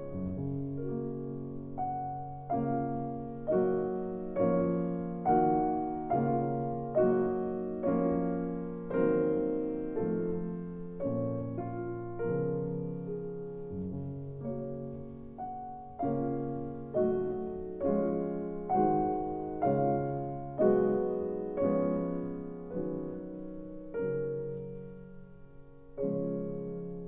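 Slow piano music: notes and chords struck roughly once a second, each left to ring and fade.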